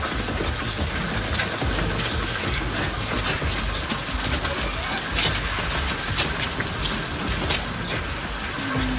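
Heavy rain falling steadily, with many sharp drop strikes on the car and ground close by.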